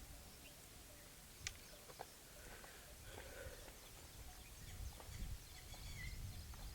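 Faint outdoor ambience: scattered short bird chirps over a low rumble, with one sharp click about a second and a half in.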